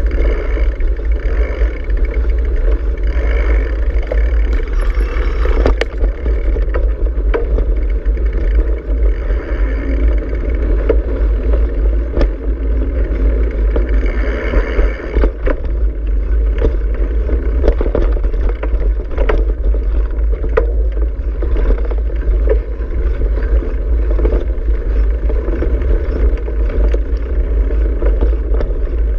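Ride noise of a bicycle rolling along a rough dirt track: a steady wind-like rumble on the microphone, broken by scattered knocks and rattles as the bike goes over bumps.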